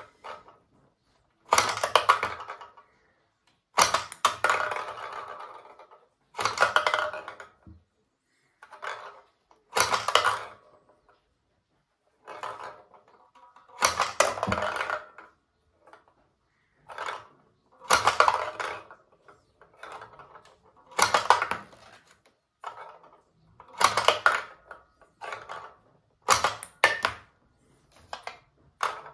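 Plastic tabletop basketball toy in play: a string of short clattering bursts, one every second or two. Each is a small plastic ball snapped off the spring launcher, hitting the plastic backboard and hoop, then rattling down into the plastic tray.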